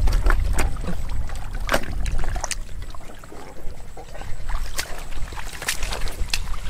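Water and mud sloshing and splashing in irregular strokes as live catfish are handled in a muddy basin and the basin is carried through wet mud, over a steady low rumble.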